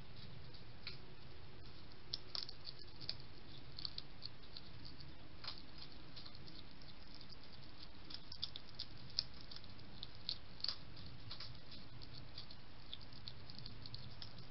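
European hedgehog crunching and chewing dry biscuits: small, irregular crunches and clicks, in clusters with short gaps, over a steady low hum.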